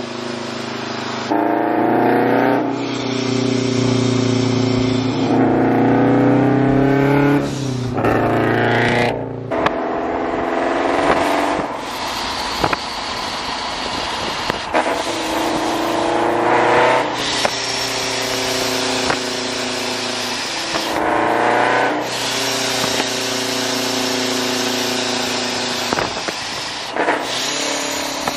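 Vortech-supercharged Scion FR-S flat-four with a straight-pipe exhaust, pulling hard through the gears. The engine note climbs steadily in each gear and drops suddenly at each shift, over roughly half a dozen pulls.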